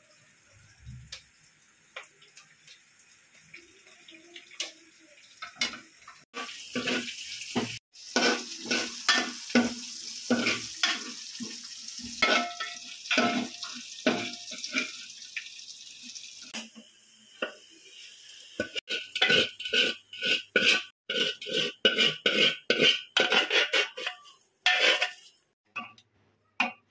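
Aluminium cooking pots and a metal ladle clattering, clinking and scraping as food is mixed and spooned between pots, with a quick run of ringing metal taps for several seconds near the end.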